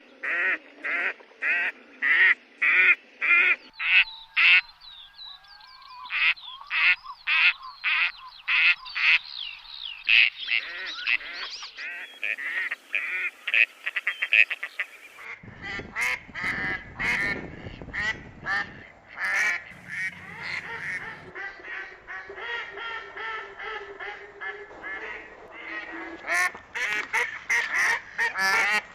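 Ducks quacking in series of short repeated calls, about two a second at first, with the background changing abruptly between recordings. From about halfway through, many calls overlap over a low rumble, as from a flock.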